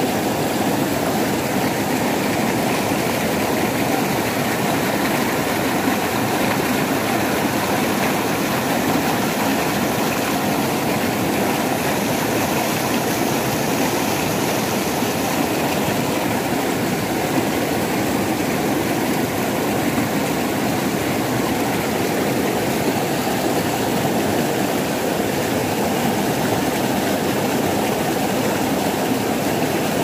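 Mountain stream cascading over boulders: a steady, unbroken rush of water.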